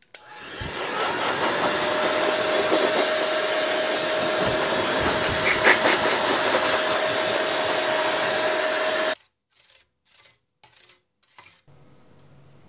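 Handheld electric air duster blowing dust off a circuit board: it spins up over about a second into a steady rush of air with a constant motor whine, runs for about eight seconds and cuts off suddenly, then gives several short blasts.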